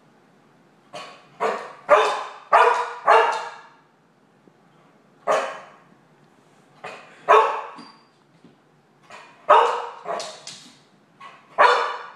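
A dog barking repeatedly in uneven bouts: a run of five sharp barks early on, then single barks and pairs, then another cluster of four near the end, about a dozen barks in all.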